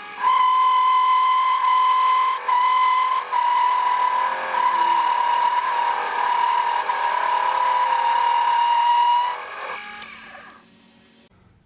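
Mini-lathe boring out the back of a metal drive adapter, cutting with a loud, steady high-pitched whine from the tool and spinning chuck. Near the end the cut stops and the sound fades away as the lathe winds down.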